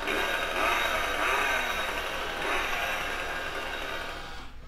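Recorded chainsaw engine sound played from the built-in speaker of a Spirit Halloween 2023 Leatherface animatronic as the figure runs through its motion. It cuts off near the end.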